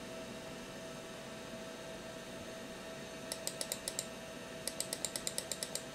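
Computer mouse button clicked in two quick runs, about six clicks and then about ten, some seven a second, scrolling a text window on a Macintosh SE/30. A steady faint hum runs underneath.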